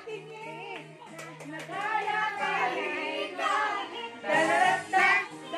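Children's high voices singing and calling out over background music, louder near the end.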